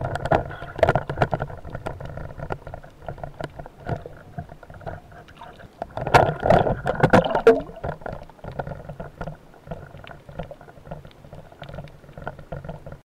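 Underwater sound picked up by a camera mounted on a speargun: a run of sharp clicks and knocks from the gun, shaft and line being handled with a speared fish on the shaft. About six seconds in there is a louder stretch of splashing and rushing water at the surface, and the sound cuts off suddenly near the end.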